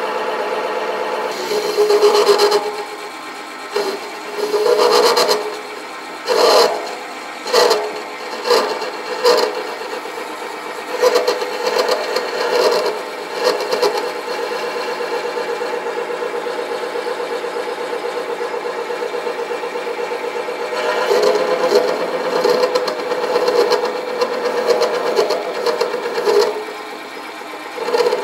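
Sieg mini lathe running with a steady pitched hum while a parting tool is fed into the spinning eccentric sheave to cut its raised rim. The cutting noise swells in uneven bouts, many of them between about two and fourteen seconds in, and again for several seconds near the end.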